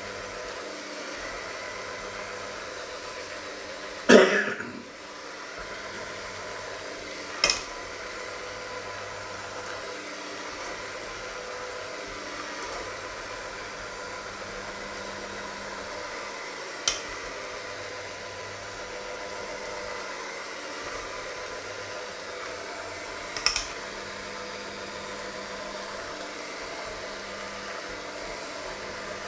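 Electric hand mixer running steadily with its beaters in a stainless steel bowl of batter, with a few sharp clacks of the beaters against the bowl, the loudest about four seconds in.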